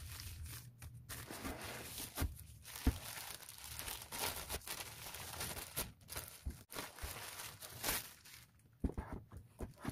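Packaging rustling and crinkling as the lock's front and back panels are unwrapped and taken out of the box, with scattered light knocks and clicks of handling.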